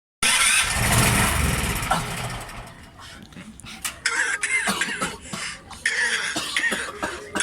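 A loud rushing noise that fades over about two seconds, then a run of short, sharp coughs and throat-clearing sounds.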